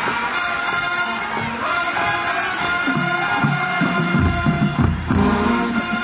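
Music with held notes, joined about four seconds in by a deep, pulsing bass.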